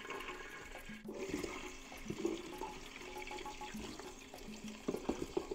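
Hot cooking oil sizzling steadily in the steel pot of an electric multicooker as green plantain chunks are pre-fried. A few sharp clicks and spatters come near the end as more plantain pieces are dropped into the oil.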